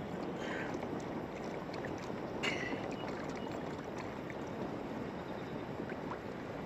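Steady rush of wind and water noise around a small open fishing boat, with a short knock about two and a half seconds in.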